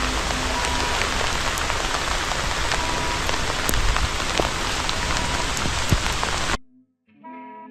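Steady rain falling on the ground and plants, with scattered sharp drop hits. It cuts off suddenly near the end, and soft instrumental music begins.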